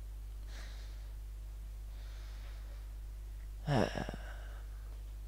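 A man breathing, with a short voiced sigh falling in pitch about four seconds in, over a steady low hum.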